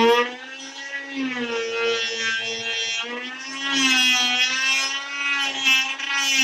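Chicago Electric corded oscillating multi-tool running with a steady high buzz while its blade cuts into wood, the pitch sagging and recovering as the blade bites; it gets quieter about a third of a second in and louder again about halfway through.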